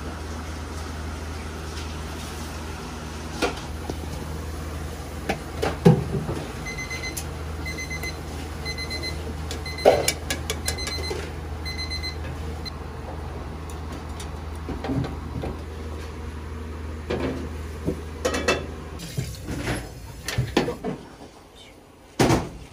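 Kitchen clatter over a steady low hum: sharp metal clinks and knocks of pots and utensils on a gas range. In the middle an electronic beeper sounds a quick run of short beeps for about five seconds. The hum stops near the end, leaving only the clinks.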